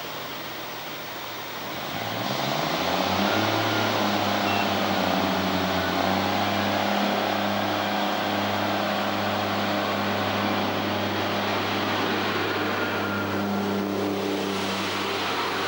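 Class 142 Pacer diesel railbus pulling away from the platform: its engine revs up about two seconds in and then runs steadily under power as the train draws past.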